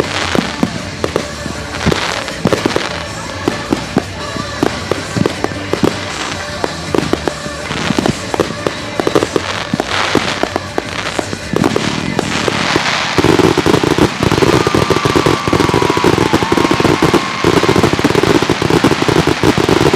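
Consumer fireworks going off in a string of separate bangs. About thirteen seconds in, a dense, rapid crackling barrage takes over. Music plays underneath.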